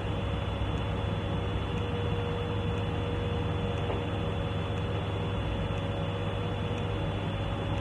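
Steady background hum and hiss, with a faint tick about once a second.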